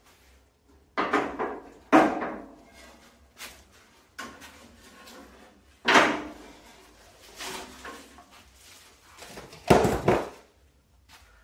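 Several sharp metal clunks and rattles as a ratchet strap's buckle is released and the strap is unhooked from the car's front end. The loudest clunk comes near the end.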